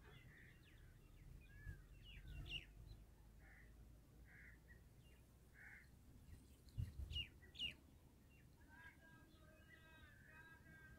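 Faint bird calls: scattered short chirps and soft single notes, two quick loud chirps about seven seconds in, and a run of harsher layered calls near the end. Light wind rumble on the microphone lies underneath.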